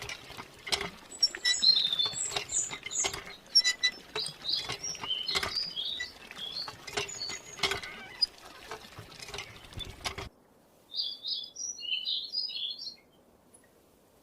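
Birds chirping over rapid, irregular clicking and tapping. About ten seconds in, everything cuts off at once; after a brief pause there is a short run of bird chirps on their own.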